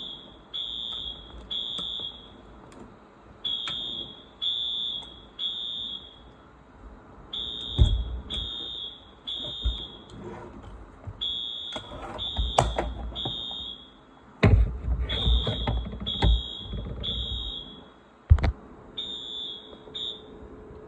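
Wheelock New Series fire alarm horn sounding the temporal-3 evacuation pattern in alarm after a smoke detector activation: repeated groups of three high-pitched beeps with a short pause between groups. Several loud knocks and thumps land among the beeps, heaviest a little past halfway through.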